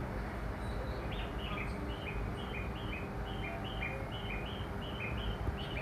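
A bird singing a repeated two-note phrase, a high chirp then a lower one, about two phrases a second, over a steady low background hum.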